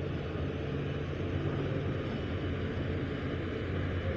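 Steady low drone of ferry engines, with water wash, as a large car ferry and a fast catamaran ferry pass close by.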